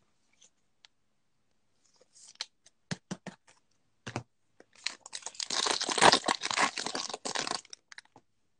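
A plastic trading-card pack wrapper is torn open and crinkled by hand. A few light clicks and handling ticks come first, then a loud stretch of tearing and crackling for about three seconds.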